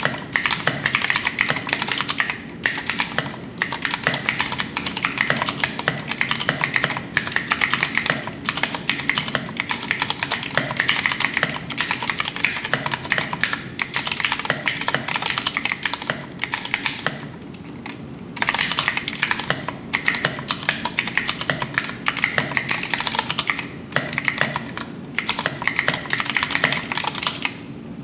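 Fast continuous typing on a Vortex Poker3 mechanical keyboard with Cherry MX Brown switches and tall SA-profile keycaps, a dense run of key clacks broken by a brief pause about two-thirds of the way through.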